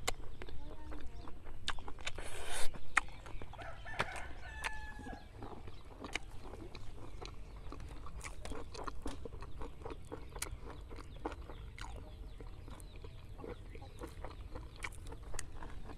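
Chickens clucking and crowing in the background, over small clicks and rustles of hands handling food close to the microphone. A short, loud rustling burst comes about two and a half seconds in.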